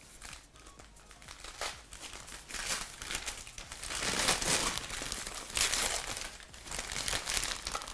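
Tissue-paper wrapping crinkling and rustling in irregular bursts as it is pulled off a wrapped item by hand, loudest about halfway through.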